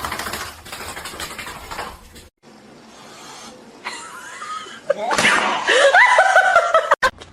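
A rattling, noisy clatter, then after a cut a voice laughing loudly in a run of short repeated notes.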